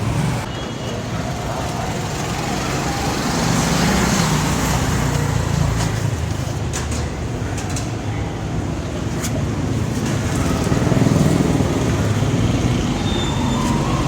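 Steady road traffic noise: a vehicle engine running with a low, continuous rumble that slowly swells and eases.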